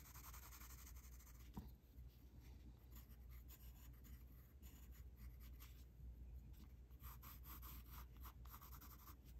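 Faint pencil strokes on paper as a portrait is shaded: light, quick scratching in clusters, once near the start and again about seven seconds in, over a low steady room hum.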